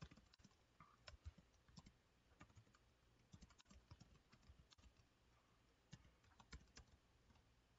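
Faint computer keyboard typing: irregular, quick key clicks in short runs.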